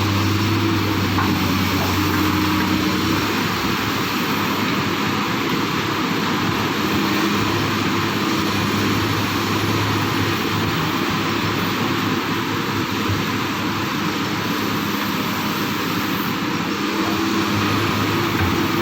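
Hydraulic excavator's diesel engine running steadily under working load, its note easing and picking up again every few seconds.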